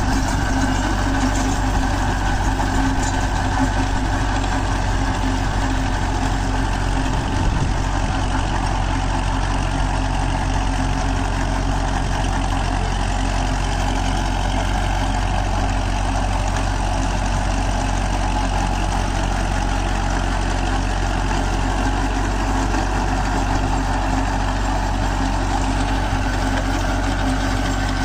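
Kubota MU4501 tractor's diesel engine running steadily under load while it drives a rotary tiller through the soil, a continuous even drone.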